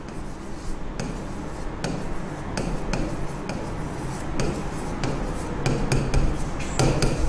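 A stylus writing on the glass of an interactive touchscreen board, making irregular sharp taps and scrapes as each stroke is drawn.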